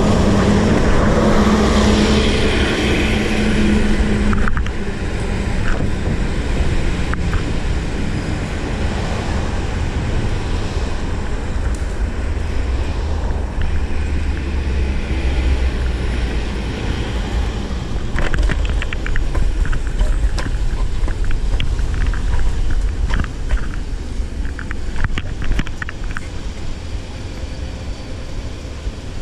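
Wind rumble on the microphone and road noise from a ride on an electric kick scooter in city traffic. A city bus passes close alongside with a steady engine hum in the first few seconds. Later comes a run of small rattling clicks.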